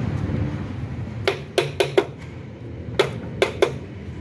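Seven sharp taps and knocks from a hand tool and hands working on a car's radiator cooling-fan assembly, four in quick succession, then three more about a second later, over a steady low hum.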